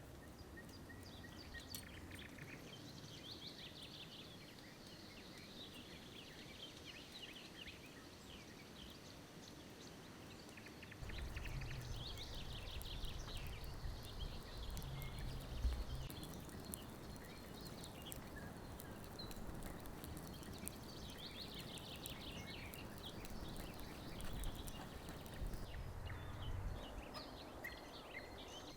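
Small songbirds chirping in repeated short calls in forest ambience. About a third of the way in, a low rumbling noise starts and runs on under the birds, with scattered clicks.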